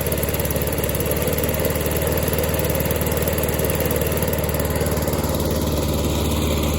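Lawn mower engine running steadily, its carburetor freshly cleaned.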